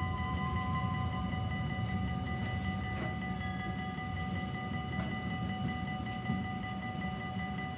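Freight train of tank wagons rolling past: a steady low rumble of wheels on rail, with a couple of sharp clacks and a steady high ringing tone over it.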